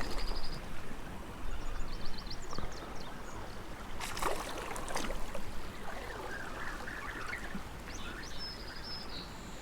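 Small spring creek running steadily, with two brief louder bursts about four and five seconds in.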